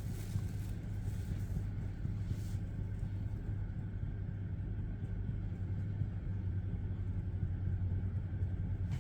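Steady low machine hum, with a few faint taps in the first couple of seconds.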